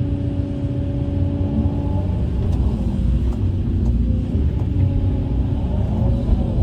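Heavy construction machine's engine running with a steady low rumble, a faint held tone fading out about two seconds in.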